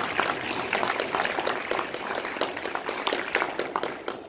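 Audience applauding, a dense run of many hand claps that dies away at the very end.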